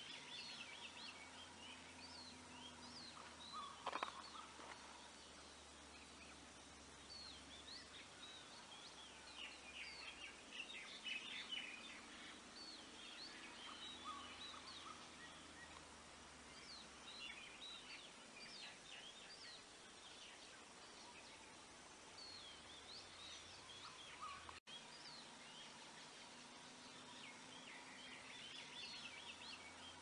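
Faint outdoor ambience: small birds chirping in scattered clusters over a low, steady background hum, with one short louder sound about four seconds in.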